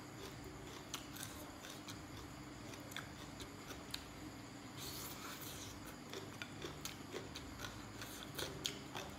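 Close-up eating sounds: crunchy chewing of green papaya salad and rice noodles, with many small wet mouth and finger clicks and a short crunchy rustle about five seconds in. A faint steady hum runs underneath.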